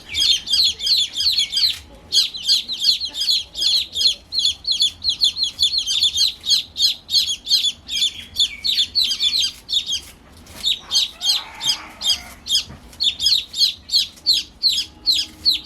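Baby chicks peeping: rapid, continuous high-pitched cheeps from several chicks at once, with a couple of brief pauses. A lower, rougher call sounds about eleven seconds in.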